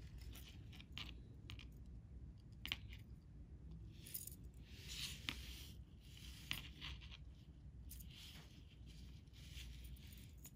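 Faint swishing and scratching of fishing line sliding through fingers and around a metal snap swivel, with a few light metallic clicks as the swivel is handled.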